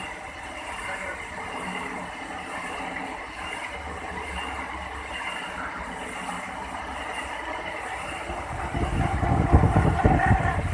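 Lathe running with a combination spade drill cutting into the spinning workpiece: steady machine hum and cutting noise. A louder, rougher rumble comes in about eight and a half seconds in and eases off near the end.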